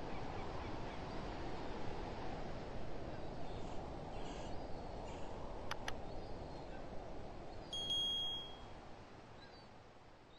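A steady outdoor rush of noise with a few bird calls at the start, then a cursor-click sound effect, two quick clicks, about six seconds in, and a short bright notification chime about two seconds later. Everything then fades out.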